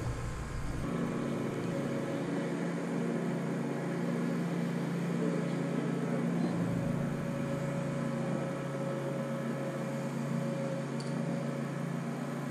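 Steady drone of vehicle traffic on the road bridge overhead, holding an even pitch.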